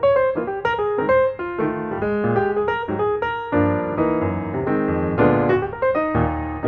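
Background piano music, a run of quick notes with chords stepping in a steady rhythm.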